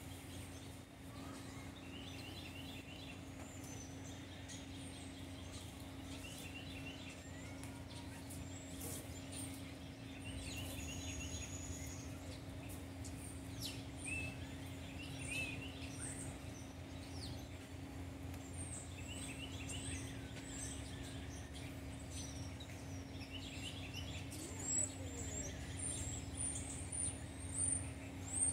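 Outdoor ambience with a steady low hum. Short clusters of quick, high chirping calls come every few seconds, and a few sharper chirps near the end.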